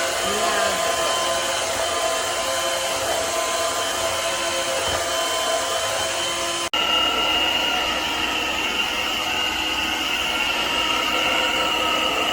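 Cordless stick vacuum motor running steadily with a high whine; about two-thirds of the way through the sound cuts abruptly and resumes with a slightly different pitch.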